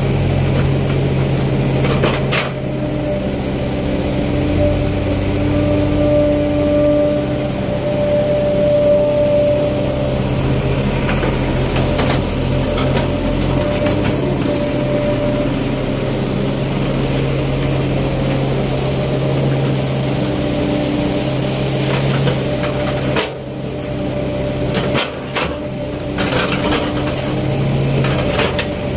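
Sumitomo S265 excavator's diesel engine running steadily under load, with a whine that comes and goes as the hydraulics work the arm and bucket. A few knocks about three-quarters of the way in.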